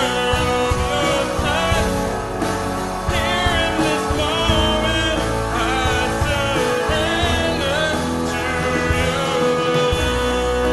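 Contemporary worship music: a band playing with voices singing over guitar and sustained instrument chords.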